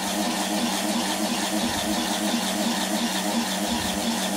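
Small fischertechnik electric motor running with a steady hum.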